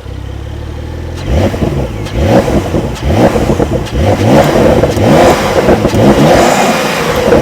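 Porsche 911 Carrera T (992) twin-turbo flat-six idling, then revved repeatedly with the exhaust in Sport mode. Each blip of the throttle rises in pitch and drops back, one after another.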